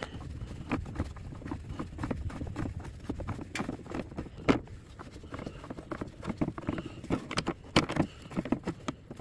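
Irregular clicks and knocks of a hand working the plastic air-filter cover on a standby generator's engine as it is unfastened and lifted off, over a low steady rumble. Two knocks, about four and a half seconds in and near the end, stand out.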